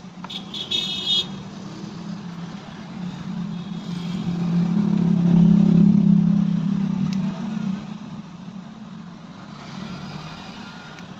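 A road vehicle's engine passing by: a low hum swells to its loudest about six seconds in and then fades away. A short, high-pitched sound comes about a second in.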